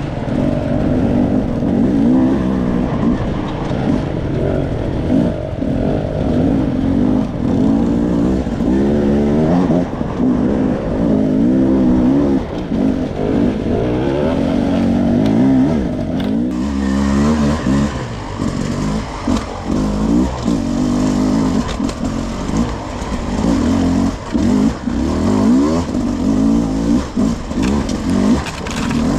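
Enduro dirt bike engine revving up and down over and over with repeated blips of throttle.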